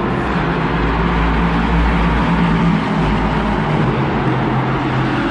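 Car engine running at a steady idle, a low drone whose pitch dips slightly about three and a half seconds in.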